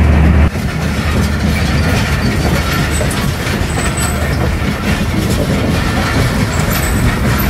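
Fareed Express passenger train running on the track, heard from a coach window: a steady rumble of wheels on rails with light clatter. A loud low hum cuts off about half a second in as the rumble takes over.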